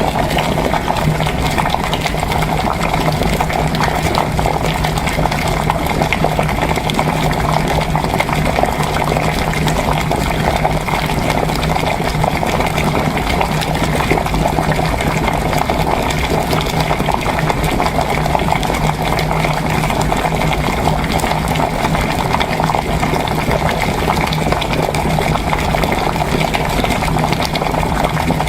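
Water at a rolling boil, bubbling steadily, with a steady low hum, overlaid with continual typing on a Happy Hacking Keyboard's Topre switches as soft, scattered key clacks.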